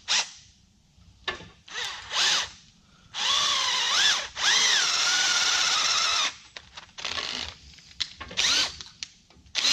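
Cordless drill running a twist bit into a hatch hinge, in short bursts and then one long run of about three seconds. Its whine sags and recovers in pitch as the bit bites, with the drill sounding as if it is losing power, which the user puts down to a dying battery.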